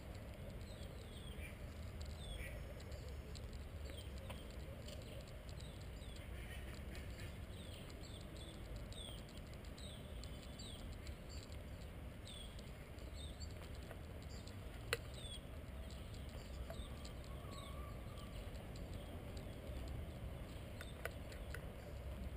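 Small birds chirping over and over among trees, over a steady low background rumble, with a single sharp click about fifteen seconds in.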